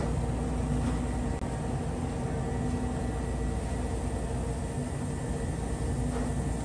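Steady low rumble and hum with a few held tones under a hiss, cutting off abruptly near the end.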